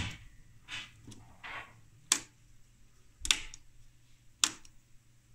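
Four sharp clicks of push-buttons on the test equipment, about a second apart, as the video test patterns are stepped through, with softer handling rustles between them over a low steady hum.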